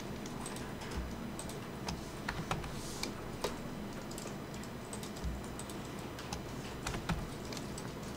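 Computer keyboard keys and clicks tapped at irregular intervals, a few per second, over a faint steady background hiss.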